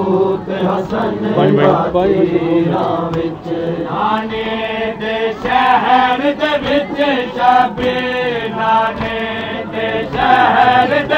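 Men chanting a nauha, a Shia mourning lament, in a loud massed chant, with sharp slaps of hands on bare chests (matam) among the voices.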